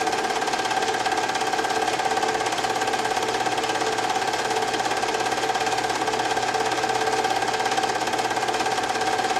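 Film projector running: a steady motor whine under a rapid, even mechanical clatter from the film-advance mechanism.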